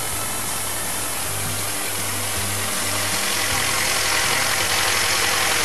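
Narrow-gauge diesel locomotive engine running as it hauls a rake of wagons, growing louder as it draws near.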